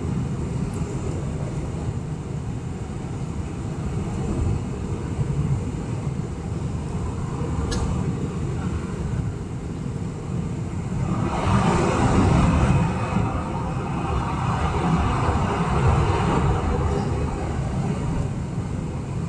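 Steady low roar of engine and airflow noise in a Boeing 747-400's cabin in flight. About eleven seconds in, a rushing noise swells for several seconds and then eases. A single sharp click comes a little before that.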